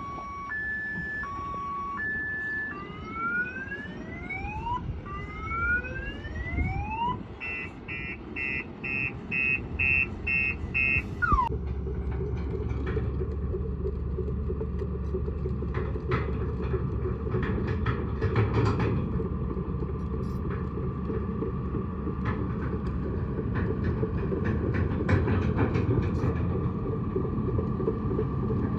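An electronic multi-tone siren cycles through an alternating two-tone pattern, rising whoops and rapid beeps, then stops about eleven seconds in. After it a heavy diesel engine runs steadily, with scattered metallic knocks and clanks.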